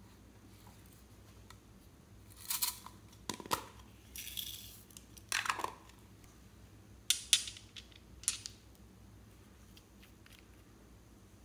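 Small plastic cosmetic and glitter containers being handled and opened over a bowl of clear slime glue: a scattering of short clicks and rustles, with a brief hiss about four seconds in as glitter is shaken out.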